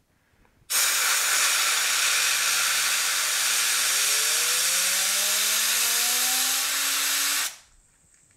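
A jet of compressed air spins an aluminium-and-brass fidget spinner up to high speed: a loud, steady hiss starts about a second in and cuts off sharply near the end, with a whistle beneath it that climbs steadily in pitch as the spinner speeds up.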